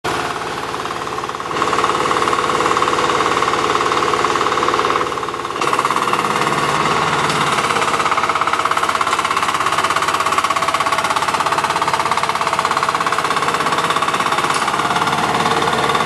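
Small single-cylinder 13 HP diesel engine of a crawler sprayer running with a fast, steady knocking beat. It gets louder about a second and a half in and drops back briefly around five seconds in.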